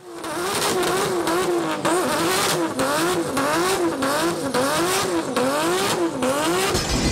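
A car engine revving over and over, its pitch climbing and dropping back about every two-thirds of a second.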